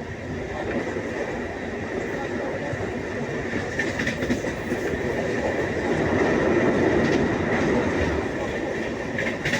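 A train running along the track: a steady rumble with a high steady tone over it, growing louder about six seconds in, with a few faint clicks.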